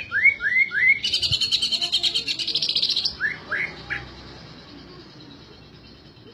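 A bird calling: three quick rising whistled notes, then a fast rattling trill lasting about two seconds, then three more rising notes.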